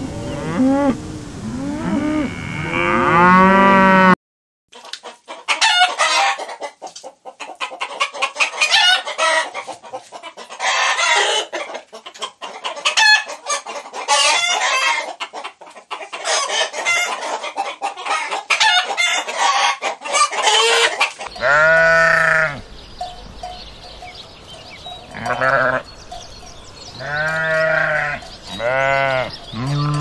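Cows mooing, cut off after about four seconds. Then a flock of hens clucking and squawking together, a busy run of short high calls. Near the end come several separate drawn-out bleats from a flock of sheep.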